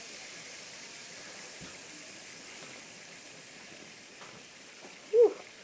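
Faint steady fizzing of baking soda reacting with vinegar, slowly fading. A short vocal sound near the end.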